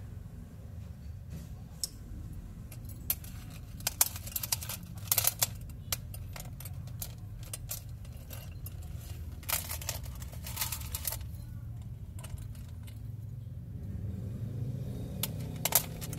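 Gold-plated stainless steel chain necklaces clinking and jingling as they are handled, in several clusters of sharp metallic clicks, over a low steady hum.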